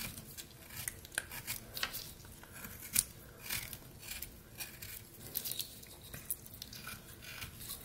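Rough Rider pocket knife blade slicing thin shavings from a piece of pine: a series of short, irregular scraping cuts, the sharpest one about three seconds in.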